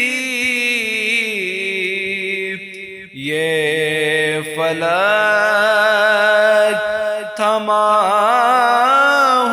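Naat sung as vocal chanting in long, slowly bending held notes, with no instruments showing. The voice drops away briefly about three seconds in, then comes back.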